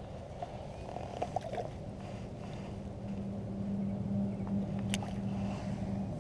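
A motor's steady low hum, growing louder about halfway through, with a few faint clicks and knocks.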